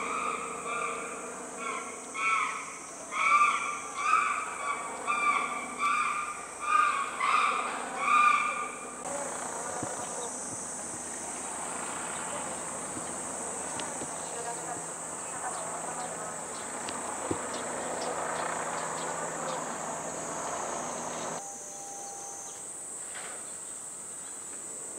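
Outdoor summer ambience with a steady high-pitched insect drone. Over the first nine seconds there is a run of short, repeated pitched calls, the loudest sound here. After that comes an even hiss with faint ticks, which drops away about three seconds before the end.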